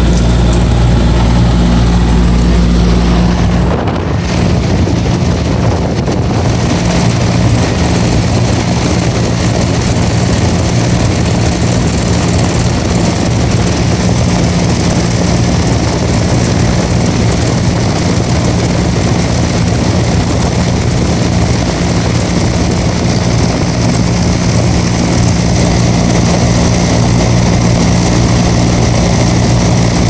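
R22 air conditioner condensing unit running with its contactor held in by hand: the compressor hums steadily under the rush of the condenser fan, pumping the refrigerant down into the outdoor unit as the low-side pressure falls toward zero. A deeper part of the hum drops away about four seconds in.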